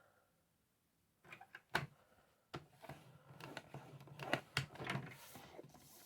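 Card and crafting tools being handled as card is lined up and scored: a run of clicks, taps and light scrapes starting about a second in.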